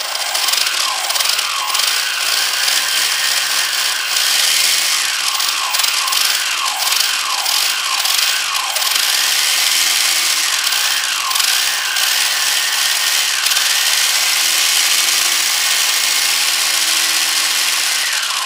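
A 2200 kV brushless motor drives a 3D-printed plastic gearbox and axle. It whines and rattles as the throttle is blipped up and down over and over, then held steady at high speed for the last few seconds, and it stops right at the end.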